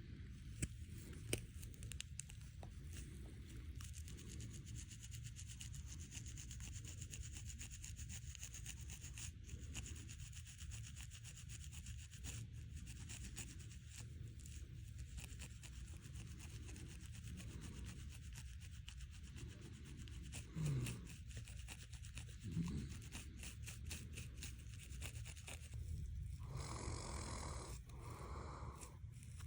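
Fingernails scratching a scalp through the hair, a faint, steady, dry scratching. Twice, about two-thirds of the way through, there is a short low sound that falls in pitch. Near the end, loud snoring sets in.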